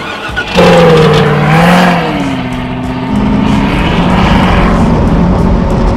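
Turbocharged 6-liter LS V8 of a 1948 Diamond T off-road pickup revving hard about half a second in, its pitch swinging up and down, then running more steadily from about three seconds in.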